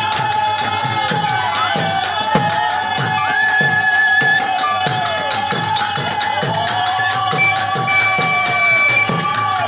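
Bengali kirtan music: a khol drum beats a steady rhythm under jingling hand cymbals, with a held melodic note above that dips in pitch now and then.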